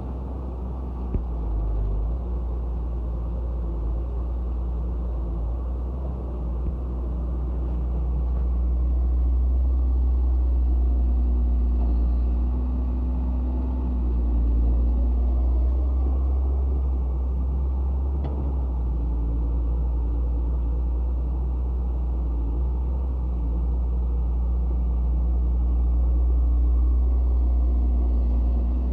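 Heavy diesel machinery running with a steady low rumble, the engine note rising and holding for a few seconds about ten seconds in and again near the end, as when an excavator works under load.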